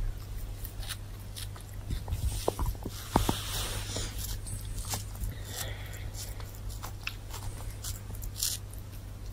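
Lynx kitten gnawing and biting, with scattered sharp clicks and rustling, busiest in the middle, over a steady low hum.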